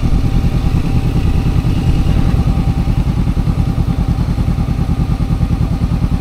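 Motorcycle engine running steadily while riding, its firing pulses a fast, even beat.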